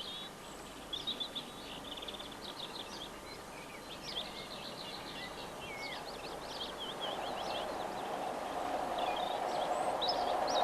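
Birds chirping and singing in quick runs of short high notes, with the rumble of an approaching train rising steadily over the last few seconds.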